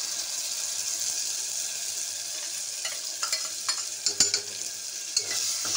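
Ginger-garlic paste sizzling steadily as it fries in hot oil with onions in a pressure-cooker pan. From about three seconds in, a steel ladle scrapes and knocks against the pan as the paste is stirred in.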